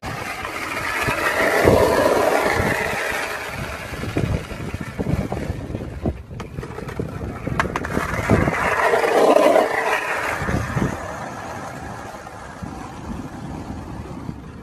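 Skateboard wheels rolling over rough asphalt with a small dog riding the board. The rolling rumble swells twice, about two seconds in and again around nine seconds, with scattered small clicks and knocks.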